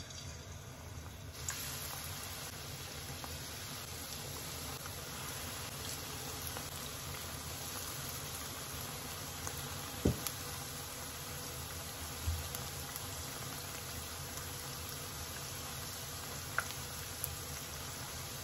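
Battered tea leaves deep-frying in oil in a wok: a steady sizzle that swells about a second and a half in as more leaves go in. A few sharp taps of wooden chopsticks against the pan, the loudest about ten seconds in.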